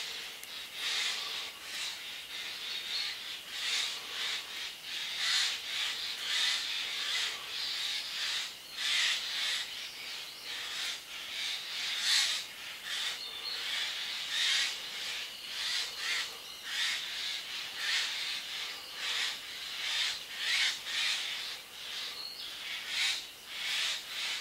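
A flock of Eurasian jays calling back and forth, one short harsh call after another, one or two a second, several birds overlapping.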